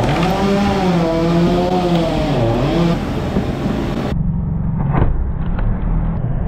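Tractor-driven hydraulic log splitter at work: the tractor engine runs steadily with a wavering whine under load for the first three seconds. About five seconds in come a few sharp cracks as a hardwood round splits open.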